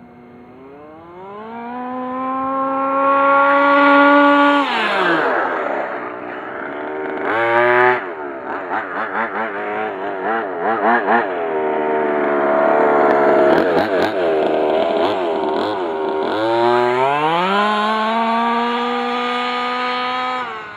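Baja 5B 1/5-scale RC buggy's 29cc two-stroke CY29RC engine with an expansion pipe and silencer, making speed runs at full throttle. Its note climbs steadily as it accelerates, falls away, warbles up and down through the middle as the throttle is worked, then climbs again on another run and cuts off abruptly near the end.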